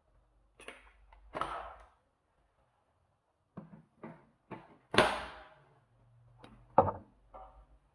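A series of irregular sharp knocks and clicks, like hard objects being handled and set down, the loudest about five seconds in and another just before seven seconds.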